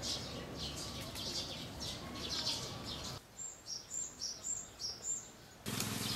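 Small birds chirping, then a single bird repeating a short, high, falling chirp about twice a second. Louder outdoor noise comes in near the end.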